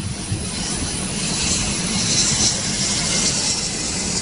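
Boeing 787-8 Dreamliner's turbofan engines running as the airliner rolls along the runway: a steady jet rush with a high hiss that swells a little around the middle.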